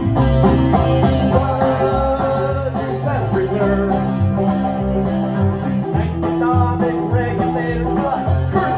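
Banjo and plucked upright bass playing an instrumental passage, the bass holding long low notes under quick banjo picking.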